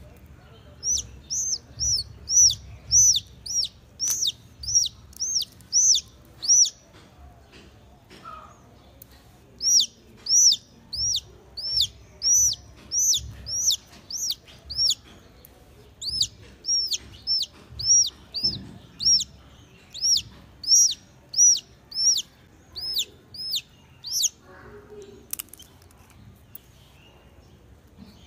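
Chick peeping: high, repeated peeps, each rising then falling in pitch, about two a second in runs broken by short pauses, stopping shortly before the end.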